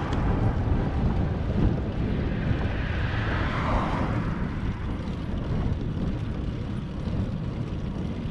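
Steady low rumble of wind buffeting the microphone, with road noise, from a camera on a moving bicycle. A soft swell of hiss rises and fades about three to four seconds in.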